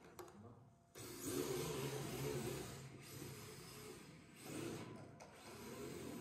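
Electric RC drift car's motor and drivetrain whirring as it pulls away and drifts, starting suddenly about a second in and rising and falling with the throttle.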